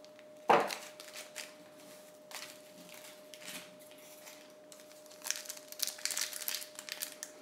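Foil baseball-card pack crinkling and tearing as it is opened by hand, the rustling growing dense in the last couple of seconds. A single sharp knock about half a second in is the loudest sound.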